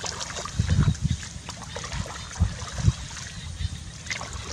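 A hoe chopping into wet mud in shallow muddy water, with splashing and sloshing. There are several dull thuds, the strongest about a second in and again a little before three seconds.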